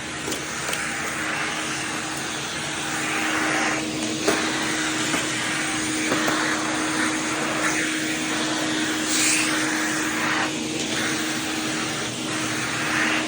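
MD model SV central vacuum running: a steady hum under a rush of suction air that swells and dips every second or two, with a few light clicks.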